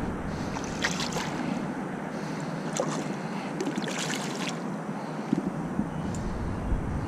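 Steady outdoor wind and water noise, with a few short crackling clicks of handling about a second in and again around three to four seconds in.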